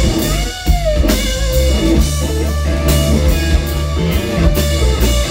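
Rock band playing live: electric guitar over bass and a drum kit, with one guitar note gliding up and back down about half a second in.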